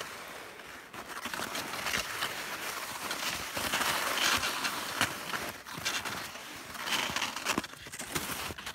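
Fischer S-Bound 98 touring skis shushing and crunching through shallow snow in strides, each swelling and fading, with a few sharp clicks in between.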